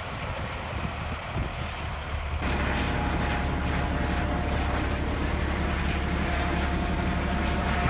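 A helicopter flying overhead at a distance, a steady drone that comes in abruptly about two and a half seconds in. Before that there is a quieter outdoor background.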